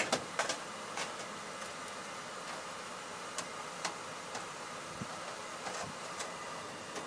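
Scattered light clicks and knocks as a TrueFlow airflow measurement grid is fitted into an air handler's supply plenum, over a steady hum.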